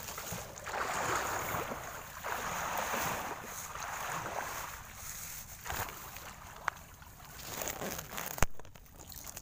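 Water sloshing and splashing in repeated swells, each a second or two long, with a sharp knock near the end.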